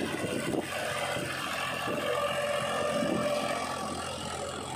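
Powertrac 434 DS tractor's diesel engine running steadily under load as it pulls a trolley heaped with mud.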